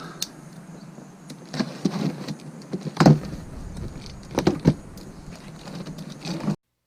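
Scattered knocks, clunks and rustles of a boxed pressure washer and its parts being handled during unboxing, over a steady low hum. The loudest clunk comes about three seconds in, and the sound cuts off abruptly near the end.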